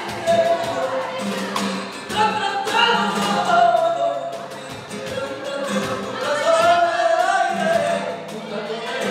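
Live flamenco alegrías: a cante vocal line sung over flamenco guitar, with sharp percussive strikes throughout.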